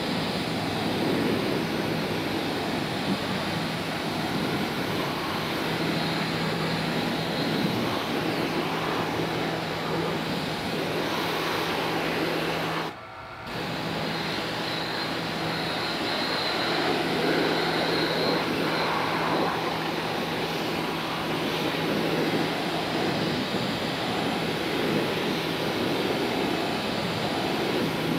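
SunJoe SPX-9009-PRO electric pressure washer running, its high-pressure water jet hissing and splattering against a metal kitchen hood baffle filter to strip off degreaser-loosened grease. A steady hum runs under the spray, and the sound drops out briefly about halfway through.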